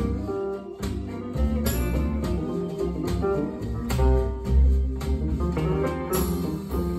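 Music played through a pair of Celef LS8 bookshelf loudspeakers and picked up in the room, with deep bass and a steady beat a little under one a second.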